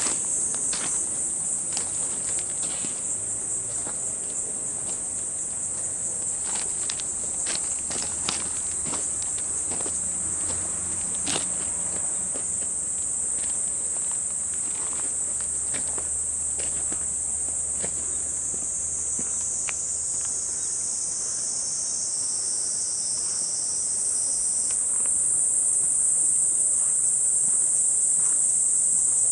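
A dense, steady, high-pitched chorus of summer insects, with footsteps on a path in the first half. A second, lower buzzing song joins for a few seconds past the middle, and the chorus grows louder near the end.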